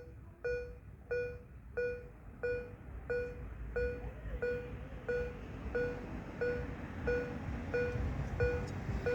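Level crossing warning bell dinging steadily, about one and a half strikes a second, signalling that the crossing is closing for a train. A low rumble grows underneath toward the end.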